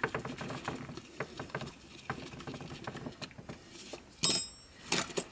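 Small plastic clicks and rustles as gloved hands handle and press the headphone earcups. About four seconds in there is a louder metallic clink of hand tools being picked up or set down on the repair mat, followed by a few more clicks.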